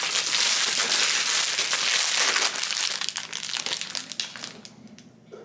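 Crinkling of a plastic tostada bag being opened and handled. It is loud at first and dies down over the last second or so.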